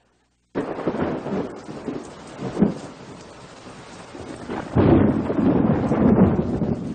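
Thunderstorm: steady rain with rumbling thunder, starting suddenly after half a second of silence. A louder peal of thunder breaks in suddenly about five seconds in and keeps rumbling.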